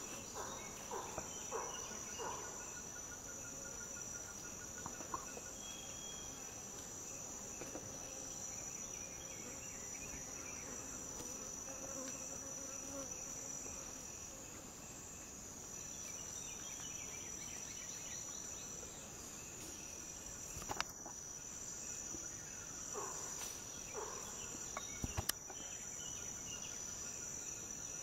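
A steady, high-pitched chorus of forest insects, one continuous shrill buzz. A few faint short calls come near the start, and two sharp snaps come about three-quarters of the way through, a few seconds apart.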